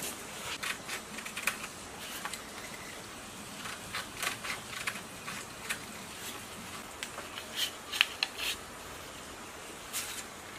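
Scissors snipping through sheets of white paper: a string of short, crisp cuts and paper rustling, bunched in two spells in the middle and near the end. Near the start, a utility knife cuts along a steel ruler.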